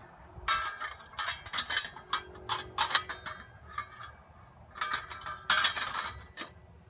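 Heavy steel plate-rack parts clanking, clinking and scraping against each other as they are handled and fitted together, in two bursts of rapid knocks with a short metallic ring.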